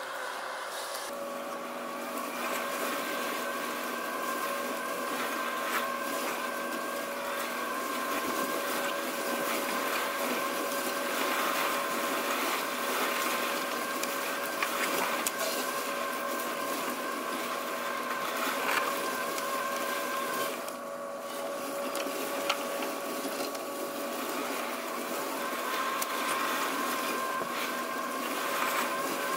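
Worx Landroid M WR141E robotic lawn mower running while it mows, heard from a camera riding on its deck: a steady electric motor whine in several pitches over a rushing hiss. The highest pitch drops out for a few seconds about two-thirds of the way through, then returns.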